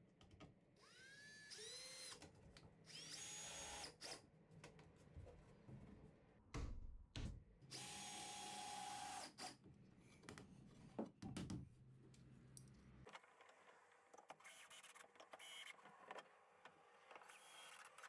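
Cordless drill driving into 2x4 wood in several short, faint runs. Its motor whine rises as it spins up, and one run holds a steady whine for about a second and a half. A few knocks of wood being handled come between the runs.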